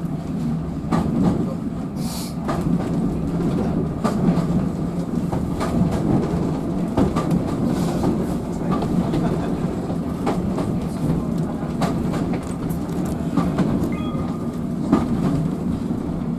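GWR auto coach running along the line, heard from its driving compartment: a steady rumble of wheels on rail with irregular clicks and knocks over the rail joints, and a brief hiss about two seconds in.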